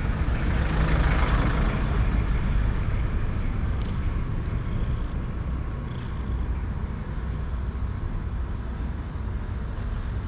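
Urban street traffic: a passing vehicle swells loudest about a second in and then fades, over a steady low rumble.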